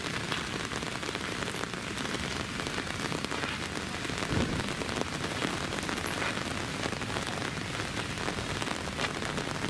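Steady rain falling, an even hiss dotted with many separate drop ticks.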